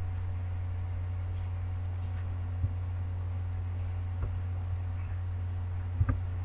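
Steady low electrical hum with no speech, broken by a few faint clicks about two and a half seconds in, about four seconds in, and a sharper double click near the end.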